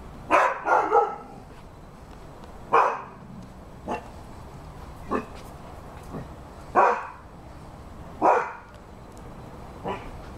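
Rhodesian Ridgeback barking: a quick run of three barks just after the start, then single barks every second or so, some louder and some fainter.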